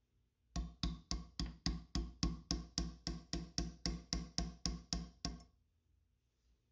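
Hammer tapping a brass punch to drift the back sight spring of an SMLE Mk III* rifle into its sight bed: about eighteen sharp, evenly spaced metal taps, nearly four a second, which stop about five seconds in.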